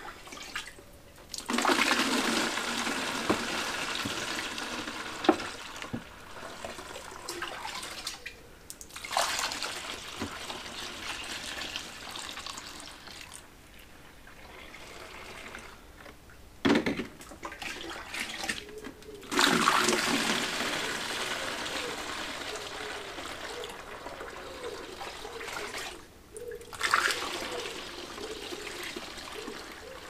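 Colostrum being poured from a plastic jug through a funnel into plastic 2-litre milk bottles: four gushing pours of a few seconds each, with short pauses between them.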